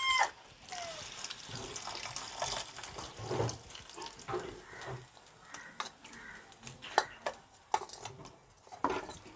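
Kudampuli soaking water being poured into a clay pot of sautéed masala, splashing in, with scattered clicks of a spatula against the pot.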